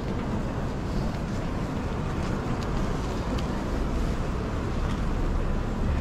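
Steady outdoor ambience of a busy city street market: a low rumble and hiss, with a few faint clicks.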